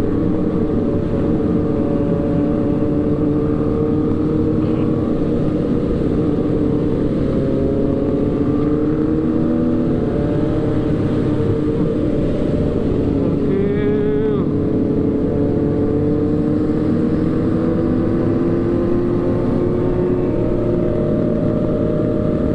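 Motorcycle engine running steadily at cruising speed, its pitch drifting slowly up and down.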